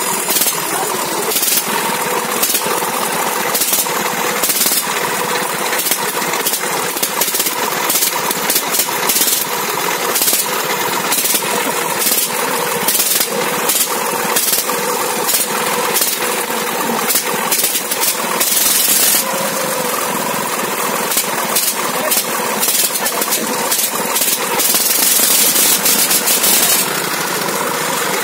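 Homemade loader's tiller engine running with a rapid, hammering clatter, growing louder and harsher for a couple of seconds near the end.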